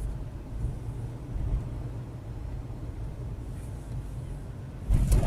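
Steady low engine and road rumble of a car driving, heard from inside the cabin as on a dashcam, with a louder low thump near the end.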